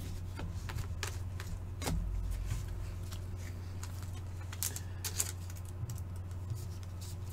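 Trading cards being handled at a table: a few light, irregular clicks and taps over a steady low hum.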